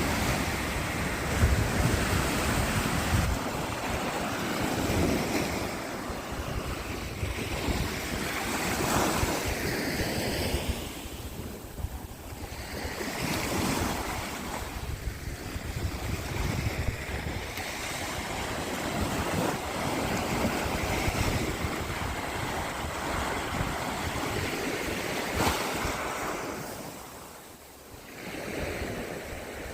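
Black Sea surf washing onto the shore in swells and lulls, with wind rumbling on the microphone.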